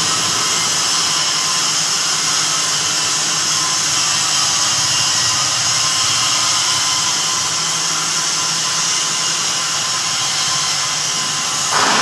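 Steady hum and hiss of a Kaiyuan submerged arc welding machine at work, welding at about 430 amps. A short louder burst comes near the end.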